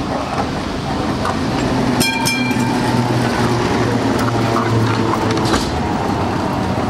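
Vintage Vienna tram and its trailer car passing close by: a steady low motor hum with the rumble and clatter of steel wheels on the rails. A short, high ringing tone sounds about two seconds in.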